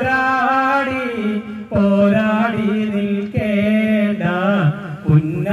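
A man singing a Malayalam Nabidinam (Prophet's birthday) devotional song solo into a microphone, unaccompanied. He draws out long held notes with ornamented, wavering turns, in three phrases with short breaths between them.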